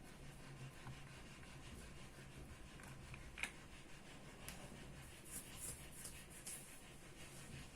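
Faint handling noises: light rubbing and rustling, with a few small sharp clicks, over a low steady hum.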